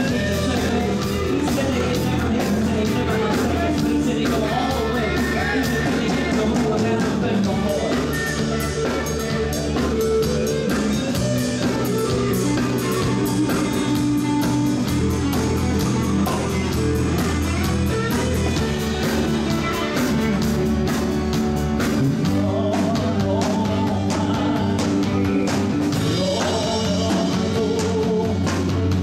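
Southern gospel band playing live, with singing over the band and drums keeping a steady beat.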